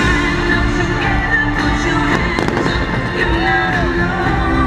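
Fireworks going off in a quick cluster of bangs and crackles near the middle, over loud pop music with singing.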